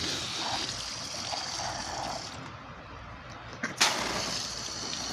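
Water running from a garden hose spray nozzle, trickling and splashing onto a plastic tarp, with one sharp click a little under four seconds in.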